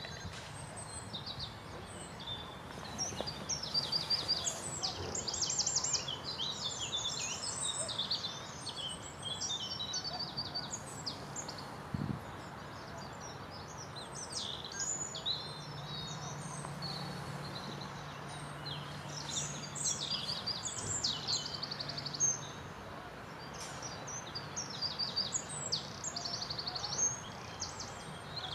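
Several small songbirds singing and calling, with quick high chirps and trills one after another over a steady outdoor hiss. A faint low hum runs through the middle for several seconds.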